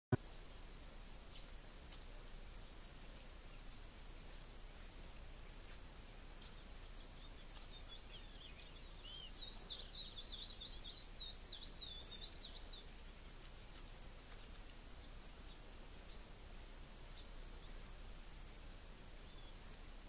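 Insects calling without pause: one high continuous whine and, under it, a second insect pulsing in short even beats. From about eight and a half seconds in, a small bird sings a rapid twittering, warbling phrase for about four seconds.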